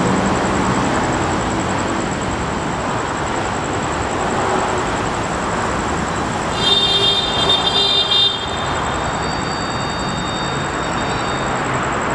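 Steady rumble of vehicle and traffic noise. About seven seconds in, a shrill, high-pitched tone sounds for a second and a half, and a fainter high tone lingers for a few seconds after it.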